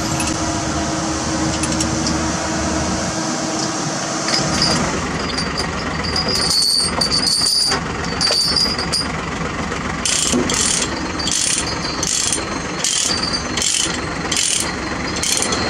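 Ratchet chain binder being worked to tighten a tie-down chain, over a steady mechanical noise: from about ten seconds in, a run of sharp ratchet clicks, roughly one every two-thirds of a second.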